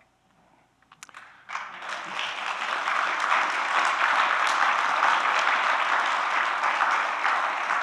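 Church congregation applauding: a few scattered claps about a second in, then full applause from about a second and a half, building and holding steady.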